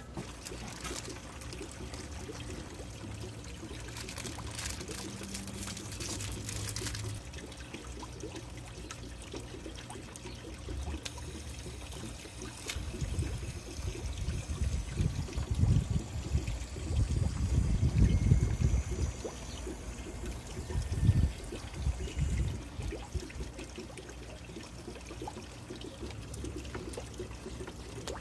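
Water steadily trickling and splashing into an outdoor goldfish tub, with low buffeting rumbles for several seconds in the middle stretch.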